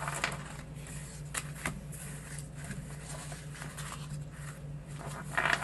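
Paper cards and ephemera being handled and shuffled: light rustling with scattered soft clicks and taps, over a steady low hum.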